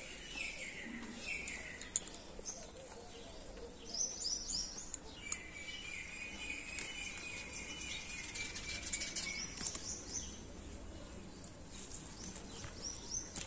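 Small birds chirping in quick bursts of high notes about four seconds in and again near the end, with a long steady high trill in between. Faint clicks and leaf rustle come from bean pods being picked off the vine.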